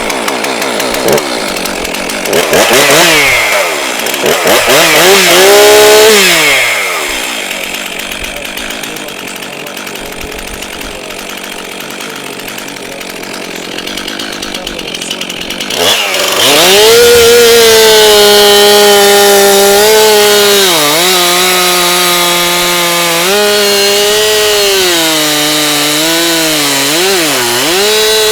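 STIHL MS 362 C two-stroke chainsaw running: revved twice, then idling, then held at full throttle cutting through a cedar round with a skip-tooth chain. The engine speed dips briefly several times as the chain takes the load.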